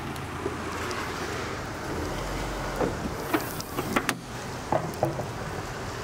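Land Rover Discovery's Ingenium engine idling, a steady low hum, with several sharp clicks and knocks around the middle.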